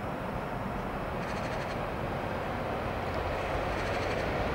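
Vossloh MaK G2000 diesel-hydraulic locomotive approaching from a distance with a freight train, its engine a steady low drone that slowly grows louder.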